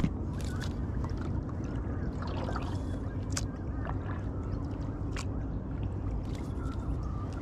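Kayak on the water: paddle and water sounds with a few sharp light clicks or knocks, over a steady low rumble.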